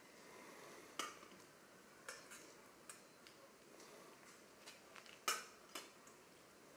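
Faint clinks and taps of communion vessels handled at the altar, about six separate strikes with the loudest just past five seconds in, as they are purified and set down after communion.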